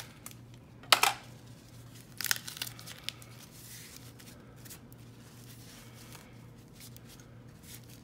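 White tissue paper wrapping torn and crumpled by hand: a sharp rip about a second in, several shorter tears around two to three seconds, then soft rustling.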